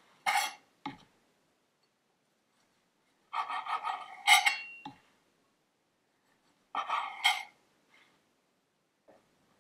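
A kitchen knife sawing through the crusts of soft white sandwich bread in three bursts of quick rasping strokes. After the first two bursts the blade knocks on the marble cutting board.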